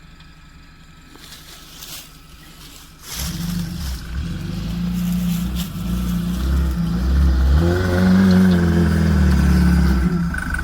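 An off-road vehicle's engine revving hard under load, coming in about three seconds in after a few knocks, rising in pitch and getting louder before dropping away near the end.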